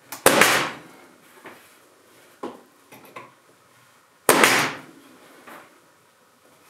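Nail gun firing twice, about four seconds apart, driving nails into the corner of a glued wooden frame. Each shot is a sharp bang that trails off over about half a second, with light knocks of the frame and tool being handled in between.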